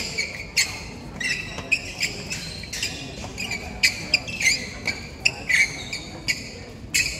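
Badminton play on several courts: sharp racket-on-shuttlecock hits and short squeaks of shoes on the court floor, coming irregularly, about one or two a second.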